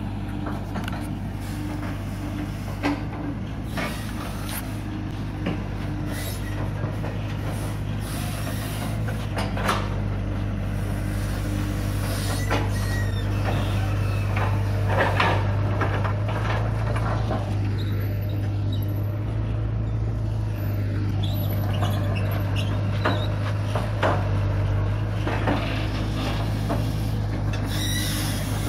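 Long-reach excavator's diesel engine running steadily under load while it digs mud from a ditch, with a low steady hum and scattered short knocks and clanks from the working machine.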